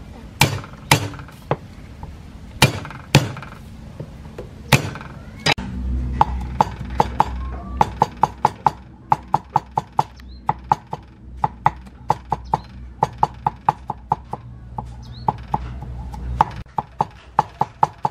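Cleaver striking a wooden chopping board as garlic is cut: a few separate heavy whacks, then from about six seconds in a steady run of quick chops, about four or five a second, as the garlic is minced. A low hum runs under most of the chopping.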